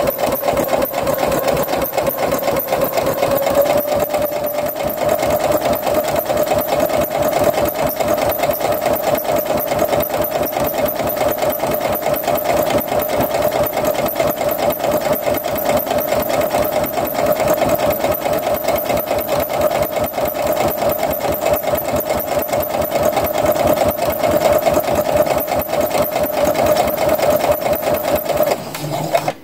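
Electric home sewing machine running a straight stitch through a fabric cap bill and its stiffener at a steady speed: an even motor whine with rapid ticking of the needle strokes. It stops shortly before the end.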